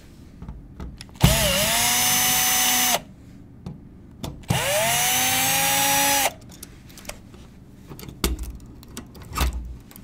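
Cordless drill/driver backing the mounting screws out of a wall outlet. There are two runs of about two seconds each, and in each the motor whine rises as it spins up, then holds steady. Light clicks and a couple of low knocks follow as the outlet is pulled from its box.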